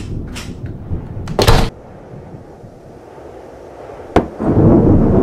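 A wooden door bangs shut about a second and a half in. Near the end comes a sharp clink as a bottle is set down on a glass tabletop, then a low rumble of thunder.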